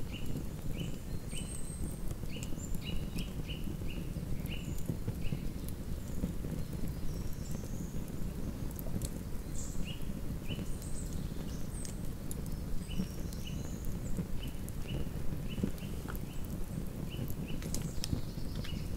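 Campfire burning with a steady low crackle and scattered sharp pops and snaps. Birds call over it in runs of short, quick repeated chirps, with higher calls now and then.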